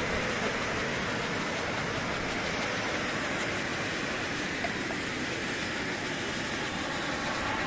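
Steady rushing hiss of burning red hand flares.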